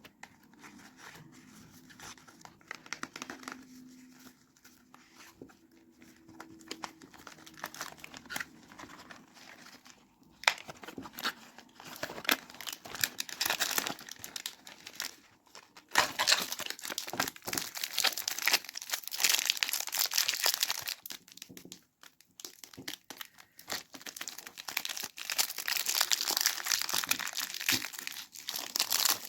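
Soap packaging being unwrapped by hand, with the wrapper crinkling and tearing. It starts as sparse faint handling and grows to steady, dense crinkling from about ten seconds in, with brief pauses.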